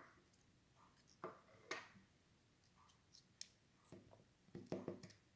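Near silence, broken by a few faint, sparse clicks of small padlock pins and parts being handled.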